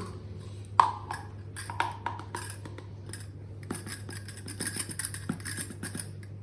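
A measuring cup clinking and scraping as flour is scooped out: scattered knocks, then a run of scratchy rustling. A low steady hum runs underneath.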